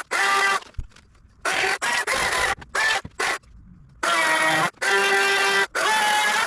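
Chainsaw running at high speed in a series of short bursts, each starting and stopping abruptly, with brief gaps of near silence between them.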